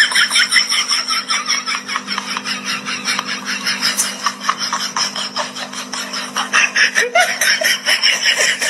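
A person laughing hard without a break, in quick high-pitched bursts several times a second, over a steady low hum.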